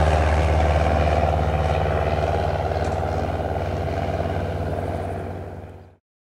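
Reims-Cessna F172P Skyhawk's four-cylinder Lycoming engine and propeller running at takeoff power as it climbs away, a steady drone that slowly fades, then fades out to silence near the end.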